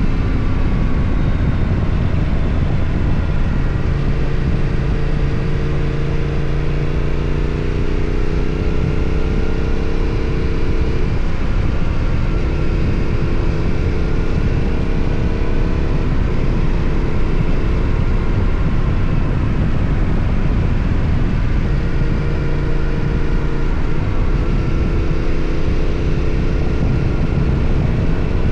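Yamaha Ténéré 700's parallel-twin engine running through its exhaust while riding. The engine note climbs and drops back several times, under a loud steady rush of wind and road noise.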